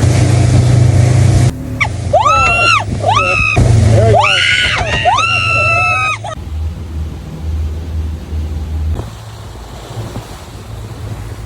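A woman screaming in four high-pitched cries of about half a second each, over the steady drone of a boat's engine and rough water. The screams stop about six seconds in, leaving the boat's engine and wave noise.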